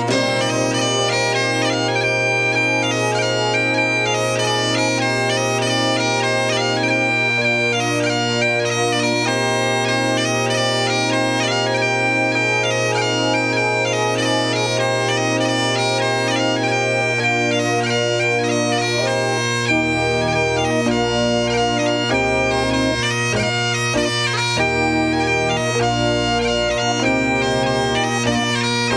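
Recorded bagpipe music: a piped melody over a steady low drone. A lower rhythmic part joins about two-thirds of the way in.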